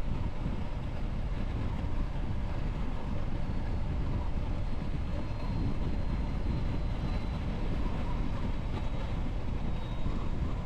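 Semi-truck running, a steady low rumble of engine and road noise.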